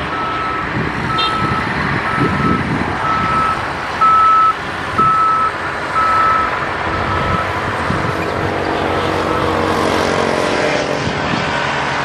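Backup alarm on a piece of heavy equipment beeping about once a second over a running engine. The beeps fade away after about eight seconds.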